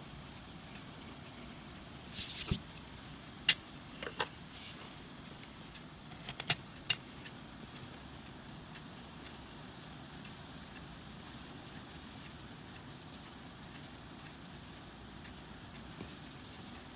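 Colored pencils being handled: a brief scratchy rustle about two seconds in, then a handful of sharp clicks as pencils knock against each other and the table. A steady faint low hum runs underneath.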